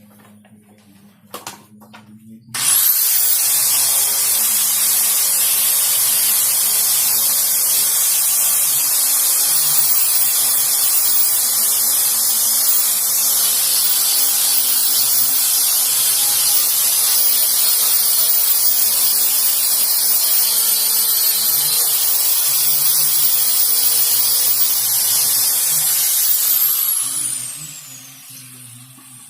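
Electric power sander switched on about two and a half seconds in and run steadily on wood, a loud hissing whir with a high whine. Near the end it is switched off and winds down, its whine falling in pitch.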